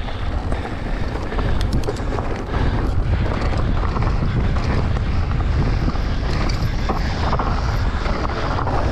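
Wind buffeting the helmet camera's microphone during a fast mountain-bike descent, a steady low rumble, with tyres running over a loose dirt and gravel trail and scattered small clicks and rattles from the bike.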